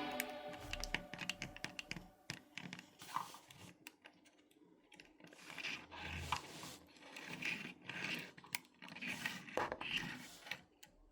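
Faint irregular scratching and scraping with light clicks, the small handling noises of hand work on a piece of wood, after the tail of background music fades out at the start.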